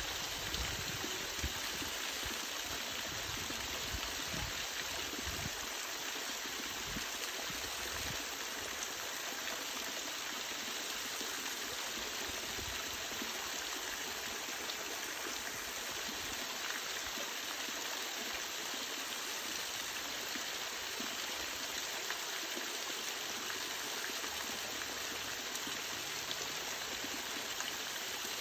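Small waterfall: thin strands of water falling off a rock ledge and trickling and splashing over stones below, a steady even rush of water.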